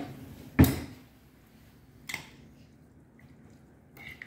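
A metal spoon knocking against the ceramic crock of a slow cooker while raw chili ingredients are stirred. There is one sharp, loud knock about half a second in, a lighter click about two seconds in, and a few small clicks near the end.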